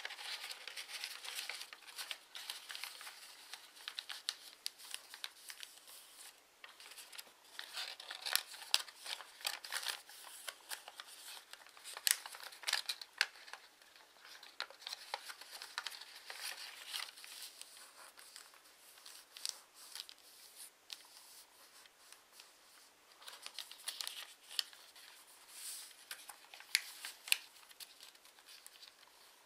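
A sheet of origami paper being folded and creased by hand: irregular rustling and crinkling, with many short sharp crackles as folds are pressed flat.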